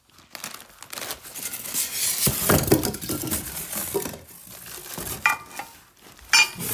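Bubble wrap and plastic packaging rustling and crinkling as hands shift wrapped metal gym parts in a cardboard box, loudest in the middle, with a couple of sharp clinks near the end.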